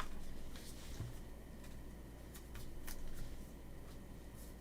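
Faint scattered clicks and light rustling of trading cards being handled and stacked.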